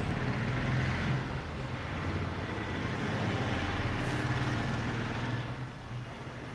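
Steady low rumble of distant road traffic, swelling slightly about a second in and again from about three to five seconds.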